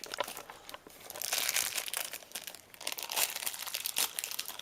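Plastic toy packaging crinkling and crackling as it is handled and unwrapped, with a busier, louder stretch about a second in.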